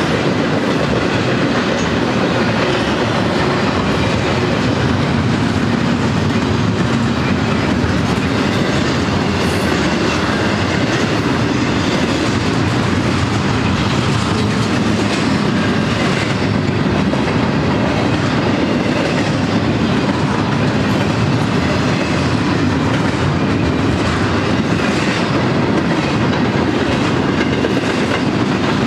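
Double-stack intermodal train's loaded well cars rolling past: a steady, loud rumble of steel wheels on the rails with a continuous clickety-clack.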